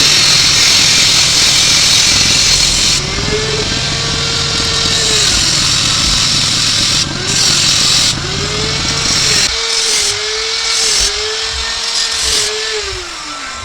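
Kawasaki KLX trail motorcycle's single-cylinder engine revving over and over: the pitch climbs, holds and drops back about four times. A steady hiss runs under the engine through the first few seconds.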